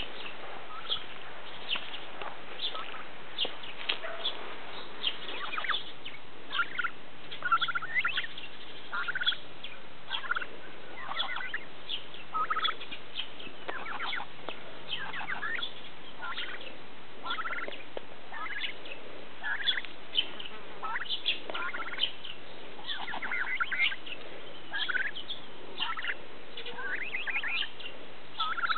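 White domestic turkey hen peeping: short, high chirps in quick clusters, several a second, many of them sliding down in pitch.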